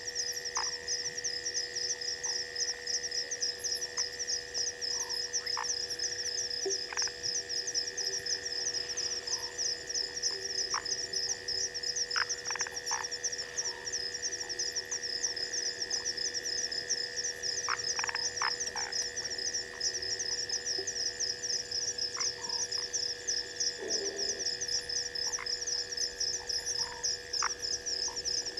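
Night chorus of insects and frogs: a fast, continuous high-pitched trill over a steady lower drone, with scattered short clicking calls and one brief low croak near the end.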